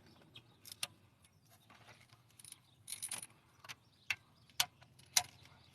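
Faint, scattered metallic clicks and clinks of hand tools, a ratchet and socket working on the engine's cylinder head bolts.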